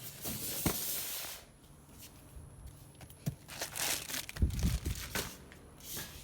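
A paper or plastic package is torn open with a long rip, followed by rustling and crinkling of the packaging and a few dull thumps as it is handled.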